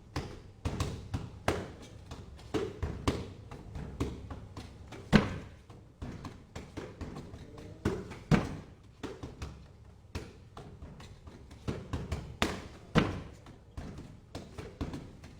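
Wing Chun punches and hand strikes landing in an irregular flurry of thuds and taps, several a second, with a few much harder blows about five, eight and thirteen seconds in.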